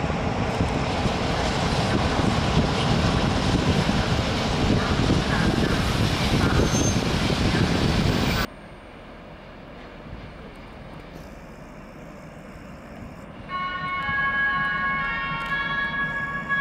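Freight train rolling past: a loud, steady rumble of wheels on rails that cuts off suddenly partway through. Then quieter station background, and near the end a cluster of steady high squealing tones as a Malaxa diesel railcar pulls in.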